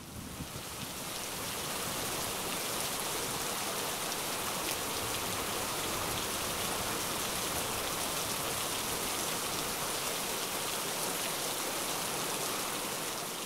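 Steady rain, an even hiss of rainfall that holds level and begins to fade near the end.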